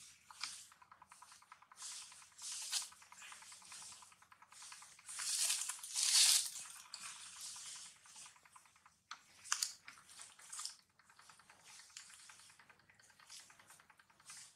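Irregular rustling and scuffling as baby monkeys scramble over dry leaves and sandy ground, with a louder stretch of crackling in the middle.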